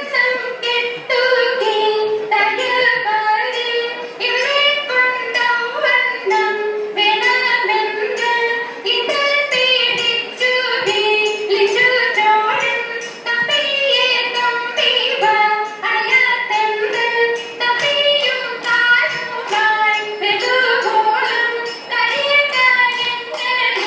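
Margam Kali song: young voices singing a traditional chant together over a quick, even beat of sharp strikes that keeps the dancers' rhythm.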